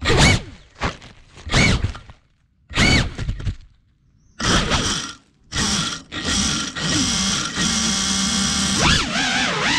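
FPV quadcopter's motors whining in short throttle bursts, each rising and falling in pitch, as the upside-down quad is flipped back onto its feet. From about 7 s in the motors spin up to a steady whine, rising in pitch near the end as it lifts off.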